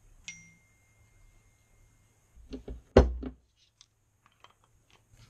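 Workshop handling noises of a metal brake caliper and hand tools on a workbench. There is a light tap that leaves a thin ringing tone for about two seconds, then a few knocks with one loud thump about three seconds in, followed by small scattered clicks.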